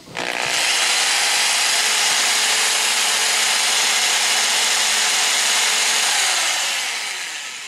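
Electric drill running steadily, spinning the fuel pump of a Rochester mechanical fuel injection unit during a bench flow test. It makes a loud, even hiss with a faint steady hum, and fades out near the end.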